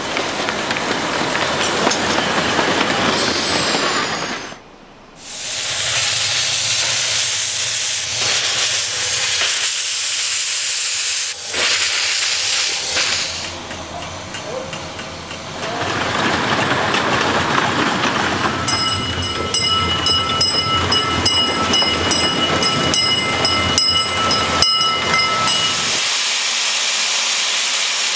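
Grand-scale (one-third-scale) steam locomotive hissing loudly with escaping steam, dropping out briefly about four seconds in. Past the middle, a steam whistle blows one long chord of several steady pitches for about seven seconds, over the hiss.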